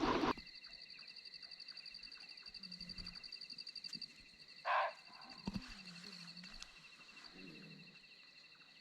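Faint low calls of an unidentified wild animal at night, heard three times, over a steady high pulsing trill of night insects. One short, louder sound comes about halfway through.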